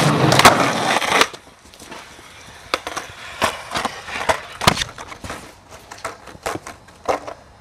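Skateboard noise: a loud rough rush of wheels and board in the first second or so, then a string of sharp clacks and pops as the board hits the ground.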